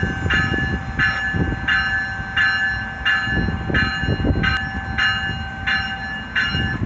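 Railway level-crossing warning bell ringing steadily, about one and a half strokes a second, over the low rumble of a commuter train.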